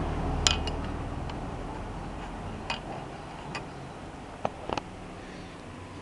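A few sharp, irregularly spaced metallic clicks from an L-wrench working a cylinder-head bolt on a Honda CG 150 engine, over a faint low hum that fades early. The bolt turns without tightening because its threads in the aluminium head are stripped.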